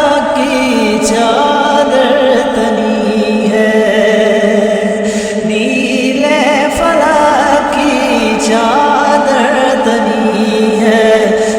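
A cappella naat interlude: layered voices hold a steady drone while a voice sings ornamented, wordless-sounding melodic runs over it.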